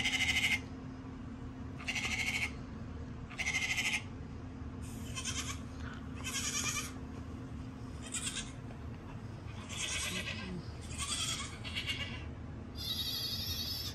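Recorded goat bleating played through a phone speaker: about nine short bleats, roughly one every second and a half, with a longer one near the end.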